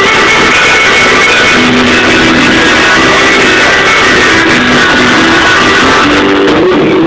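Very loud live band music with guitar, played on a steady melodic line without a clear vocal.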